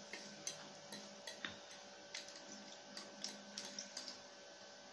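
Faint, irregular light clicks of a plastic fork against a plate while chowmein noodles are eaten, about a dozen in under five seconds.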